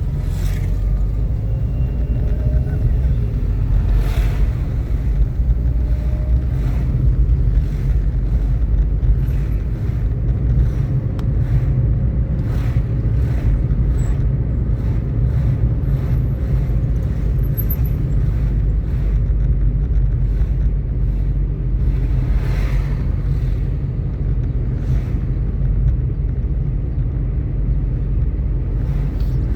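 A car driving along a road: a steady low rumble of engine and road noise, with wind buffeting the microphone.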